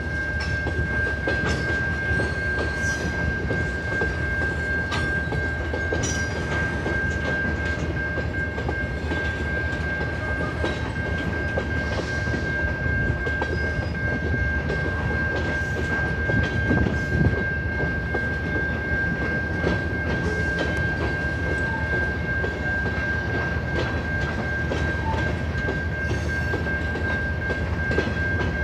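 Freight train cars (boxcars and covered hoppers) rolling steadily past through a grade crossing, their wheels clacking over the rails. A steady high-pitched tone sounds throughout.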